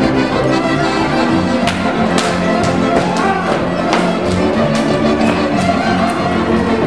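Transylvanian Hungarian village band playing dance music: fiddles lead over the contra's rhythmic chords, accordion and double bass, in a steady, driving dance beat.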